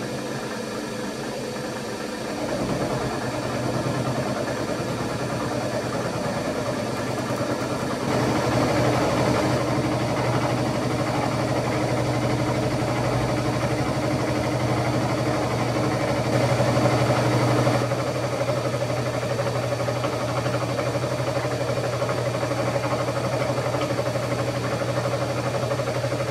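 Vertical milling machine running with a carbide end mill side-milling the edge of a metal base plate: a steady machine hum that steps up in loudness a few seconds in and again at about eight seconds.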